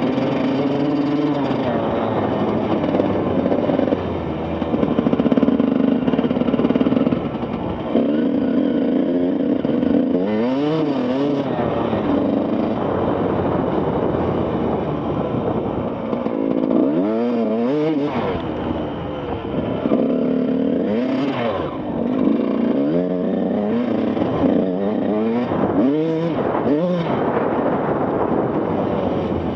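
Yamaha YZ125's single-cylinder two-stroke engine revving up and down again and again as the throttle is worked. Near the start it is held at the rev limiter.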